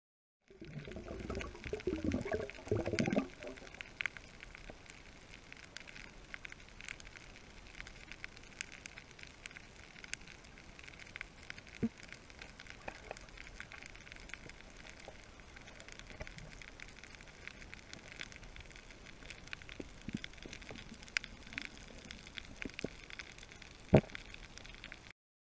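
Underwater reef crackle, a dense bed of fine clicks typical of snapping shrimp, heard through an underwater camera. Low bumping and rumbling in the first few seconds, and a single sharp knock near the end.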